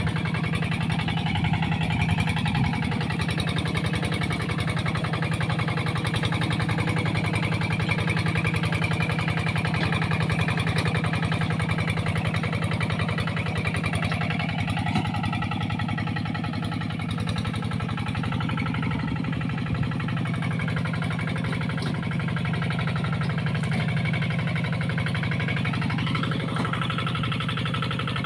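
Engine running steadily at an even speed.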